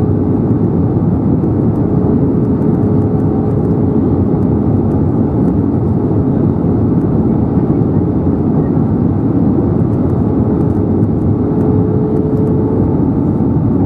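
Steady cabin noise of an Airbus A320neo in descent, heard from a window seat over the wing: the even rush of airflow and its Pratt & Whitney PW1100G geared turbofans. A steady hum runs under the noise and fades out near the end.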